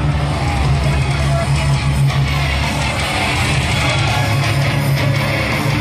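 Loud guitar rock music played over a gym's PA loudspeakers: a wrestler's entrance theme.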